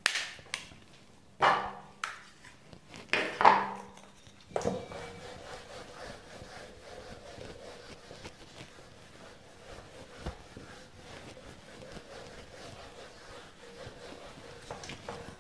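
Felt whiteboard eraser rubbing back and forth across a whiteboard, a steady faint scrubbing, after a few short, louder sounds in the first four seconds.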